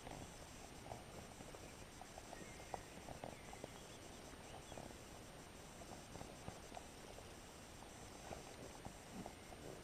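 Faint, irregular light ticking from a spinning reel being cranked slowly during a lure retrieve.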